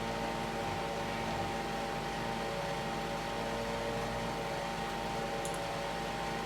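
Steady mechanical hum with several fixed tones, unchanging throughout, with a faint short click about five and a half seconds in.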